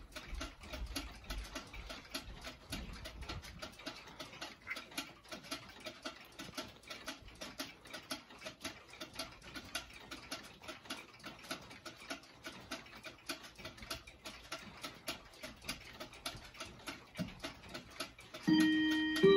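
Pendulum wall clocks ticking, several tick rhythms overlapping. Near the end the Howard Miller 613-226 wall clock begins its half-hour chime with a loud, ringing struck note.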